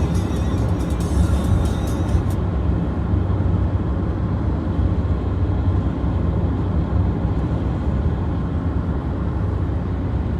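A car driving along the road: a steady low rumble of tyres and engine.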